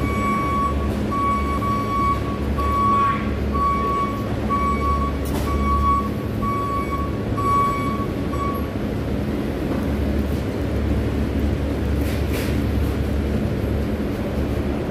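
Vehicle backup alarm beeping about twice a second, stopping about nine seconds in, over a steady low rumble in a large warehouse store.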